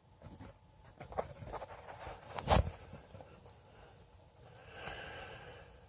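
Rustling and small knocks, then a single loud thump about two and a half seconds in. Near the end comes one soft, breathy snore from a big old cat.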